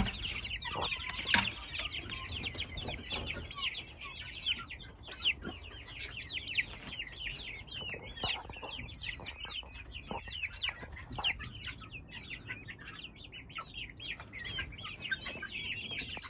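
A flock of young chickens peeping continuously in many short, high chirps that overlap one another. Occasional soft knocks and scuffs come through underneath.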